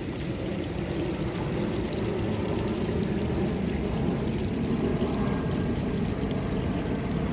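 Water running and trickling steadily in a garden koi pond.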